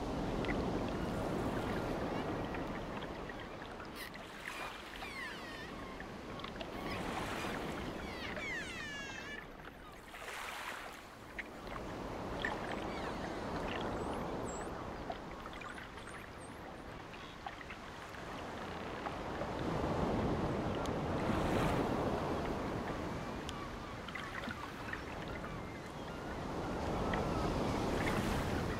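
Sea water washing and surging, a steady rush that swells and eases about every seven seconds.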